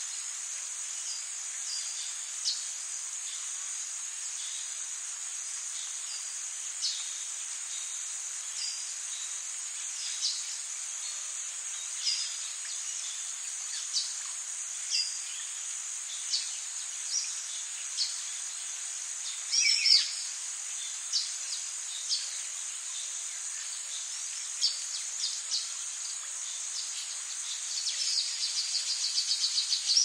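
Nature ambience: a steady high chirring of insects, with short bird chirps every second or two. One louder falling call comes about twenty seconds in, and a fast pulsed trill starts near the end.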